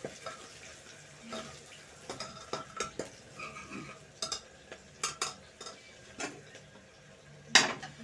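A long spoon stirring chopped onion frying in hot oil in a metal pot on a gas stove, scraping and clinking against the pot, with a faint sizzle underneath. A loud clank comes near the end.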